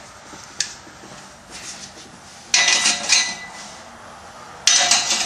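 Metal parts clinking and rattling as exhaust clamps are slid onto a stainless steel exhaust pipe: a small tick about half a second in, then two short bursts of jangling metal with a faint ring, about two and a half seconds in and near the end.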